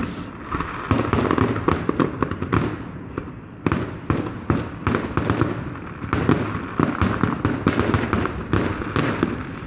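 Aerial fireworks in a grand finale: many shells bursting in rapid, irregular bangs and pops, thinning briefly a few seconds in, then coming thick and fast again.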